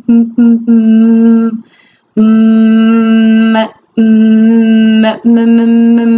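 A woman's stuttering block on the M sound of "mimosa": a few quick repeated "m" sounds, then a long hummed "mmm" held on one steady pitch. The hum breaks off and starts again several times without the word getting out.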